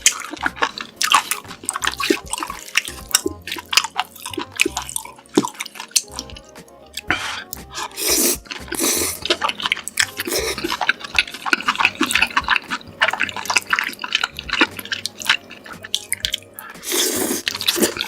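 Close-miked eating sounds: wet chewing and smacking of food coated in sauce, a dense run of sticky mouth clicks, with louder bursts about halfway through and again near the end.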